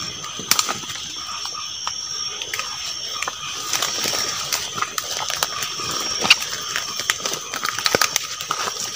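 Night insects trilling steadily at several high pitches, with scattered snaps and rustles of people moving through undergrowth.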